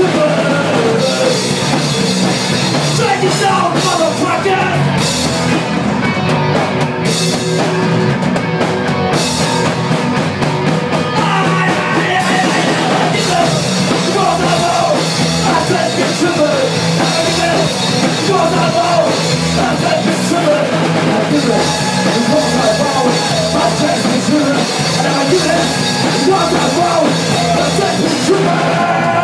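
Punk rock band playing live: a singer sings into a microphone over electric guitar, bass and a drum kit, loud and without a break.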